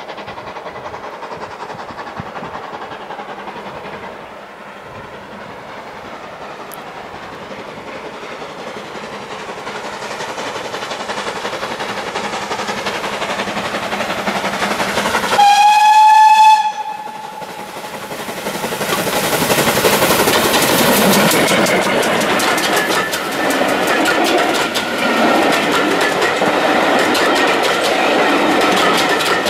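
Steam locomotive hauling a passenger train, growing louder as it approaches, then blowing one whistle blast of about a second, the loudest sound here, about halfway through. The coaches then roll past close by with a steady rumble and clickety-clack of wheels over the rail joints.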